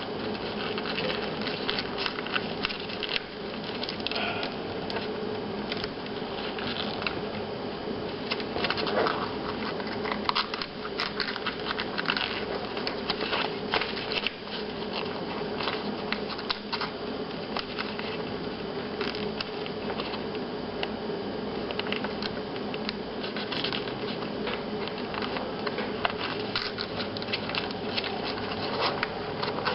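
Sheet of paper being folded and creased by hand, its flaps tucked into the folds: continual irregular rustling and small sharp crackles of paper, over a steady low hum.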